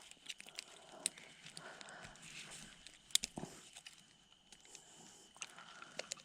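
Scattered clicks and light knocks of gear being handled and set down, with the sharpest click about halfway through, over a faint steady high tone.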